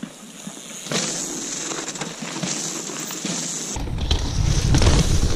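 Mountain bike riding on a dirt trail: quiet at first, then a steady hiss of tyres rolling over dirt with scattered rattles and clicks from about a second in. A low rumble of wind on the microphone joins near four seconds.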